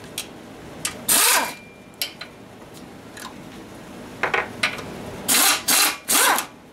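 Small handheld power wrench spinning in short bursts, backing out the valve cover bolts on a small single-cylinder snowblower engine. One burst comes about a second in and three quick ones near the end, with small clicks of the socket and bolts between them.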